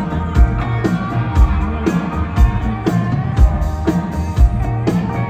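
Live rock band playing an instrumental passage: electric guitars over a steady drum beat, with a heavy low drum hit about once a second.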